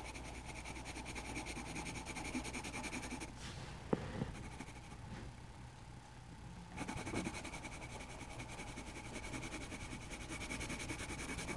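Grey coloured pencil shading on drawing-pad paper: a soft, steady scratching of quick back-and-forth strokes, quieter for a few seconds in the middle, with a small tap a little before four seconds in.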